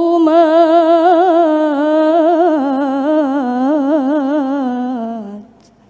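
A woman reciting the Quran in melodic tilawah style, drawing out one long held note full of quick wavering ornaments. The pitch steps down toward the end, and the voice stops a little before the end.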